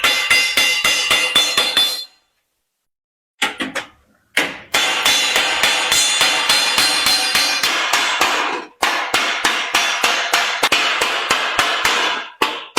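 Copper sheet being hand-hammered into a basin: rapid metal-on-metal hammer blows, about five a second, with a ringing metallic tone. The blows stop for about a second shortly after the start, then resume.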